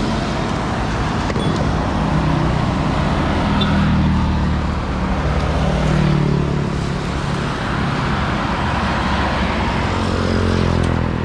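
Road traffic passing on a wet road: a steady rush of tyre noise with the hum of car and motorcycle engines swelling and fading as vehicles go by.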